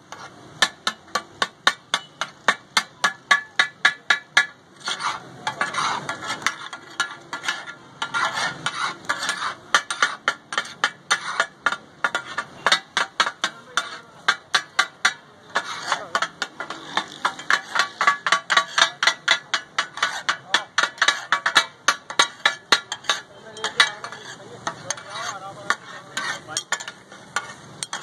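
Two metal spatulas chopping and scraping fish katakut on a large flat iron griddle: a rapid, rhythmic metal-on-metal clatter at about three to four strikes a second, with a couple of brief pauses. Under the clatter the food sizzles on the hot iron.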